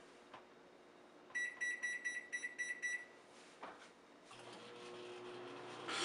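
Microwave oven keypad beeping: a quick series of about six short, high beeps as the cooking time is entered and started. After a click, the oven starts running with a low, steady hum.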